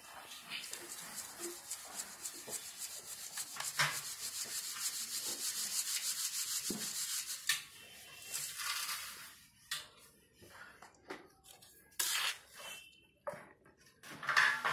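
Besan (gram flour) mixture being rubbed through a round metal mesh sieve onto a steel plate: a fast, even rasping scrape for about seven seconds, then separate scrapes and knocks.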